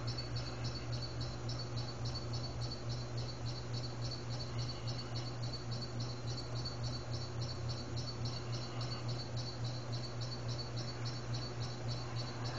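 Insects chirping in a steady rhythm, about three pulses a second, over a constant low hum.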